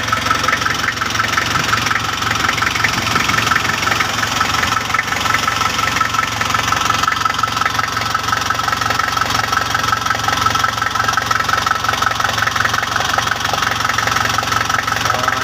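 Car engine idling steadily with the transmission off, its clutch and flywheel spinning exposed, with a constant whine over the running.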